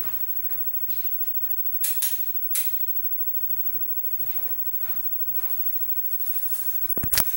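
A few sharp clicks or knocks over faint hiss: three close together about two seconds in, then a quick rattle of them near the end, the last ones the loudest.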